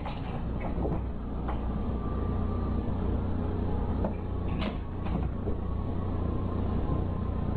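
A steady low hum with a few light taps, the loudest about four and a half seconds in.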